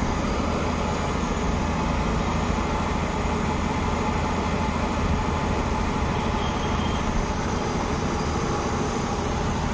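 Hyundai i10's electric radiator cooling fan running steadily, working again now that the faulty fan has been replaced and its blown fuse renewed.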